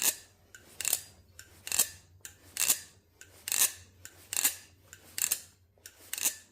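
XDYY Kraken V3 steel balisong being flipped, its handles clacking against the blade in a steady rhythm, a little faster than one clack a second, with the spacers fitted.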